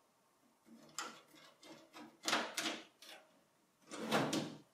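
Metal thumb screws on the back of a steel PC tower case being loosened by hand, giving short scraping clicks and rattles. There is a light click about a second in, two louder scrapes in quick succession, and a longer scrape near the end.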